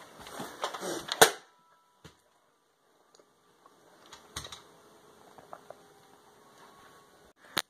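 A few sharp clicks and knocks with some rustling. The loudest click comes about a second in, then a near-quiet stretch, faint scattered ticks, and another sharp click near the end.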